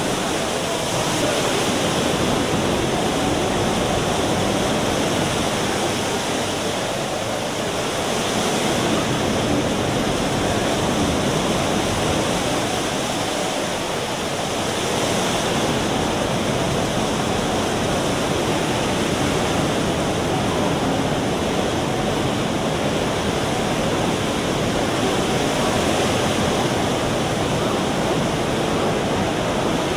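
Rain Oculus water sculpture: a whirlpool draining through the round opening in the glass bowl and falling as a waterfall, a steady rush of pouring water with gentle swells.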